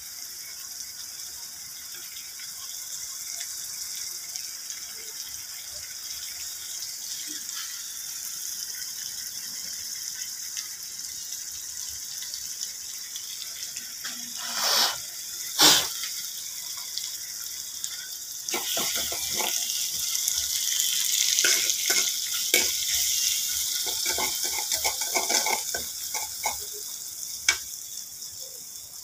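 Water running from a tap into a sink. About 16 seconds in there is one sharp knock, and from about 18 seconds the water gets louder, with many short clatters as things are handled under the stream.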